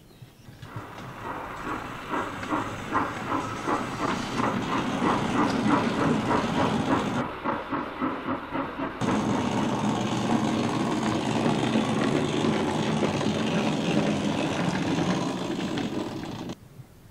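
Steam locomotive sound: a slow rhythmic chuffing of about four beats a second for several seconds, then a steady hiss of steam that cuts off suddenly near the end.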